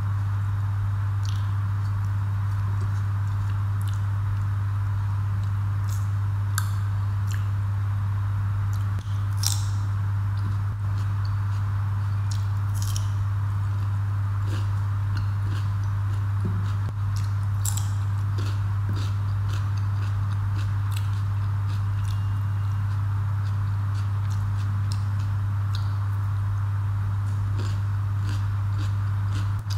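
Close-up eating sounds from a person eating with her fingers: scattered wet mouth clicks, lip smacks and chewing, with fingers being licked. Under them runs a loud, steady low hum that is the loudest sound throughout.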